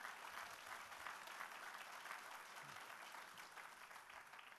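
Audience applauding, a steady patter of clapping that dies away near the end.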